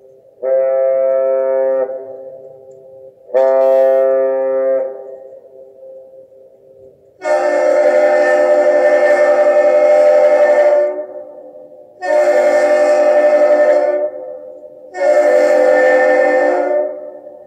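Horn salute between a Great Lakes freighter and the lift bridge's horn as the ship passes under: two shorter blasts, then three longer blasts with a fuller, brighter tone, the first of them about four seconds long.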